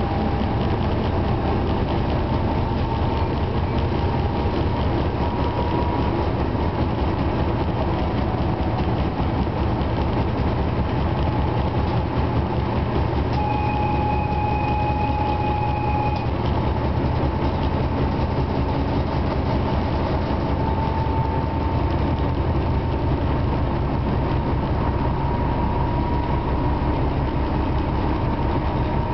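Class 749 diesel locomotive's six-cylinder diesel engine running steadily under way, heard from inside the cab, with the continuous rumble of the train moving on the rails. About halfway through, a thin steady tone sounds for about three seconds.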